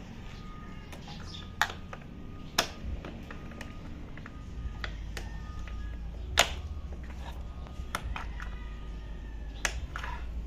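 Scattered sharp clicks and knocks of a screwdriver and a seat lock cable against the motorcycle's metal and plastic parts as the cable is fitted, the loudest about one and a half, two and a half, six and a half and nine and a half seconds in, over a steady low rumble.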